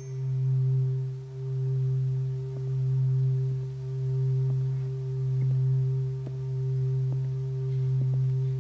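A low sustained drone from a film score: one deep humming tone with a fainter higher tone above it, swelling and fading about every second and a quarter.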